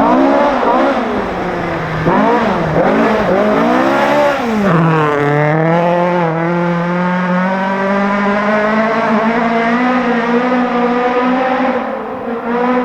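Ford Escort rally car engine at full effort, its revs rising and falling sharply several times through quick gear changes and throttle lifts. About five seconds in the revs drop, then climb slowly and steadily as the car pulls hard through a gear.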